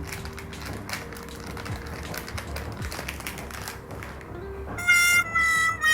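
Scattered light taps and clicks of handling, then background music with long held notes comes in about five seconds in and is the loudest sound.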